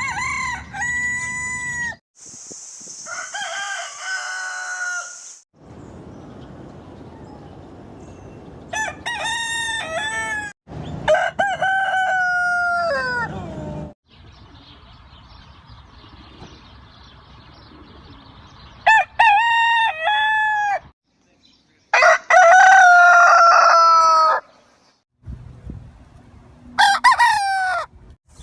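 Roosters crowing, about seven separate cock-a-doodle-doo calls of one to three seconds each, joined by abrupt cuts with short gaps between them.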